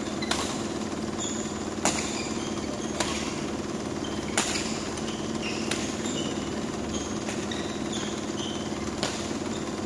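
Badminton rally: rackets striking the shuttlecock in sharp cracks, about six of them one to one and a half seconds apart with a longer gap near the end. Short squeaks of shoes on the court mat come between the hits, over a steady low hum in the hall.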